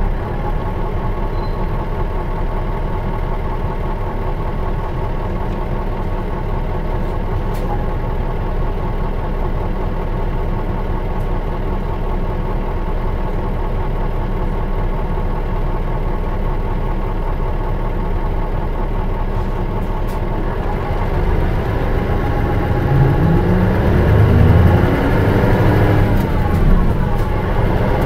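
Mitsubishi Fuso Aero Bus KL-MS86MP coach's diesel engine running steadily at a low, even note. About 20 seconds in it grows louder and its pitch climbs as the bus accelerates.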